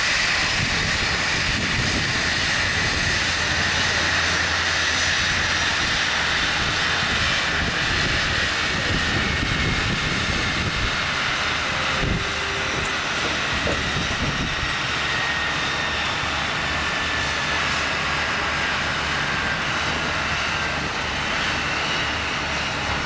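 A Boeing 737's twin turbofan engines running at idle as the jet taxis in to its stand, a steady rumble under a high whine that slowly falls in pitch.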